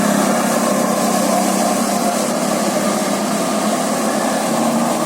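Bus engine running steadily with road noise, a low drone beneath an even hiss; no horn melody sounds.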